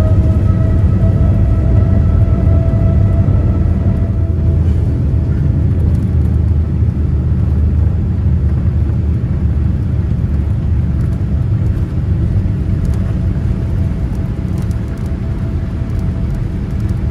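Boeing 787-8 jet engines at takeoff thrust, heard from inside the cabin: a loud, steady rumble through the takeoff roll and liftoff, with an engine whine that rises in pitch over the first couple of seconds and then holds steady. The rumble eases slightly toward the end as the aircraft climbs.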